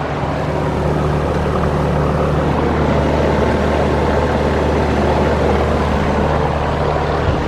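Outdoor air conditioner or heat pump condensing unit running: a steady low compressor hum under the rush of its condenser fan. A brief knock near the end.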